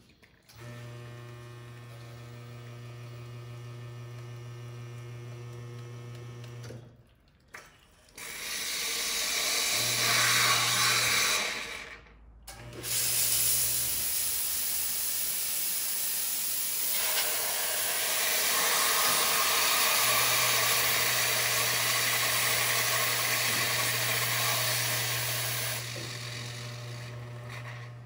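La Marzocco Linea Mini espresso machine: its pump hums steadily for about seven seconds while brewing, then the steam wand hisses loudly for most of the rest, with the pump hum returning under the hiss at times. The hiss dies down near the end while the hum carries on.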